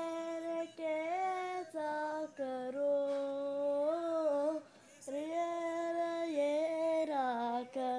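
A high voice singing on its own, close to the microphone: a run of long held notes that step up and down in pitch, with a short break about five seconds in.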